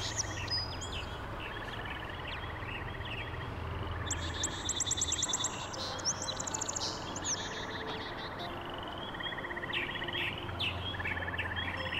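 Wild songbirds singing and chirping, with a short dry trill repeated every second or two and a quick flurry of high twittering notes about four seconds in, over a steady low hum.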